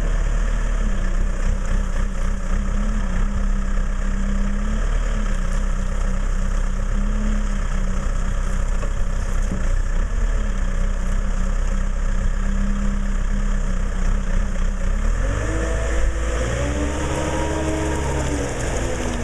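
Weidemann T6025 CC70 telehandler's diesel engine running at a steady speed, then revving up and down over the last few seconds.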